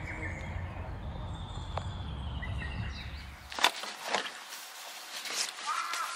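Outdoor ambience: a low rumble of wind on the microphone with faint bird calls. About three and a half seconds in, the rumble stops abruptly, followed by a couple of sharp knocks and birds chirping near the end.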